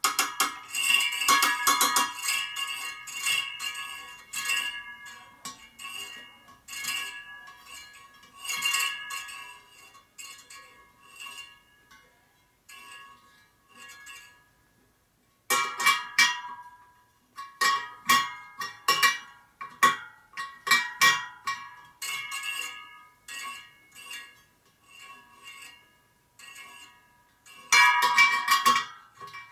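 Steel spokes of a laced motorcycle wire wheel being tapped one after another with a spoke wrench, each giving a short bell-like ring. The rings are compared to check that spoke tension is even. The strikes come in irregular runs, with a pause about halfway and a quick cluster near the end.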